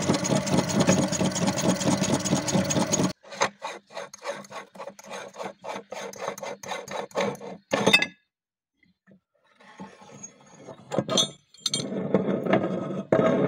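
Cast-metal hand-cranked meat grinder turning and shredding a silicone pop-it toy, a dense steady grinding rasp for about the first three seconds. It then breaks into a run of separate quick clicks and scrapes of metal and plastic, goes silent for about a second two-thirds of the way in, and ends with more scraping and grinding.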